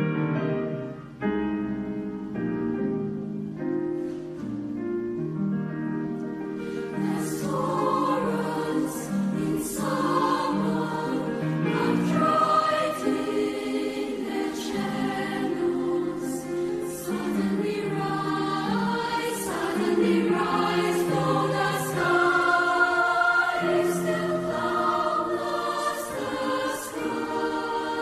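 Mixed youth choir singing in a concert hall. The full choir swells in about seven seconds in, with crisp sibilant consonants.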